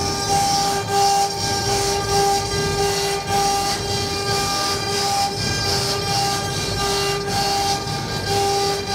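CNC router running while carving MDF: a steady whine that drops out and returns every second or so over a hiss and low rumble.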